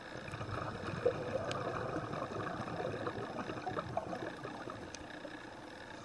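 Scuba diver's exhaled breath bubbling out of the regulator underwater. The bubbling starts abruptly, runs for about five seconds and slowly fades, with a few faint sharp clicks.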